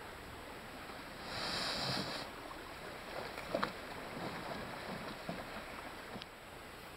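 A canoe being pushed off a sand beach into a lake: a swishing scrape of the hull over sand and water about a second in, then a few light knocks, over a steady hiss of wind and lapping water.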